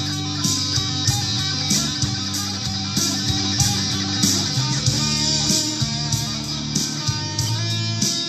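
A 2005 Gibson Les Paul Supreme electric guitar playing a melody over a backing track with a steady beat of drums and bass.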